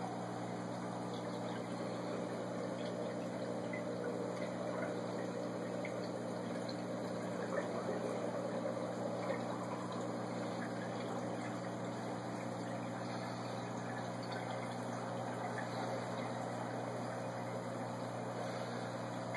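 Aquarium filter pump running steadily: a continuous water trickle over a low electric hum.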